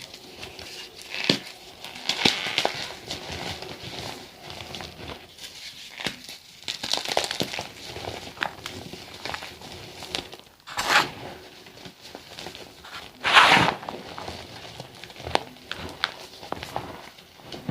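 Gym chalk mixed with sand being crushed: irregular crumbly crunches, with a few louder crunches in the second half.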